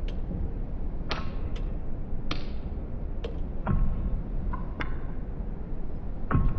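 Irregular sharp clicks and knocks, about nine of them, some followed by a short ringing tone, over a steady low rumble.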